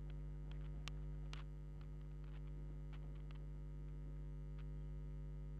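Steady low hum inside a passenger train carriage, with a few faint scattered clicks and ticks.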